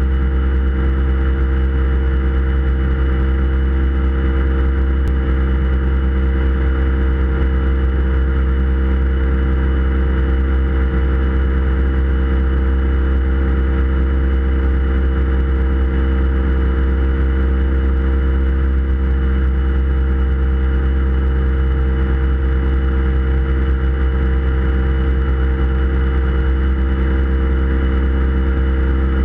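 Outboard motor of a small aluminium boat running at steady cruising speed, one even engine note that holds constant throughout.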